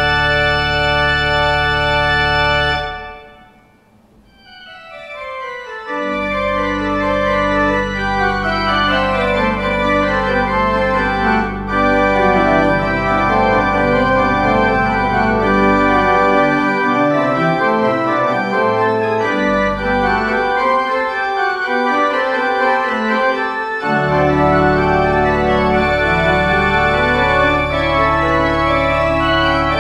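Organ music. A held full chord ends about three seconds in and dies away, then a new passage of moving chords starts over deep sustained bass notes and continues.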